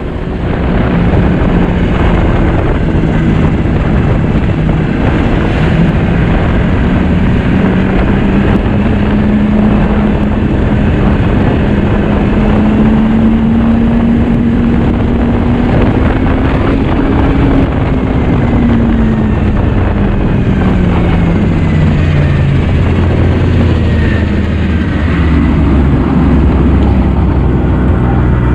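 2009 Yamaha Vector snowmobile's four-stroke three-cylinder engine running under way. Its pitch climbs slowly, drops off about two-thirds of the way through as the sled slows, and settles to a low idle near the end as it comes to a stop.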